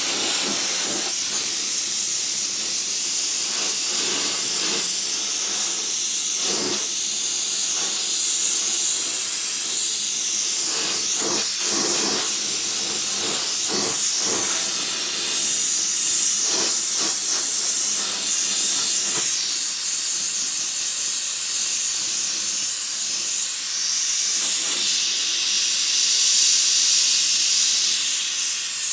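Oxy-fuel gas torch burning with a small flame, a steady hiss. It is heating steel to draw its blue tempering colours.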